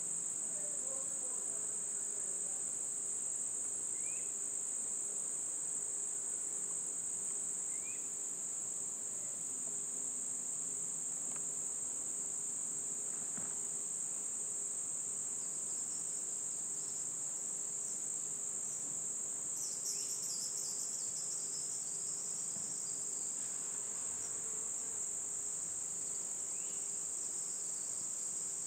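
Steady, high-pitched, unbroken chorus of singing insects in a summer meadow.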